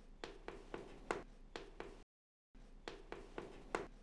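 Chalk on a blackboard writing figures: a quick run of sharp taps, about four a second, with faint scratching. The sound drops out to dead silence for half a second about two seconds in.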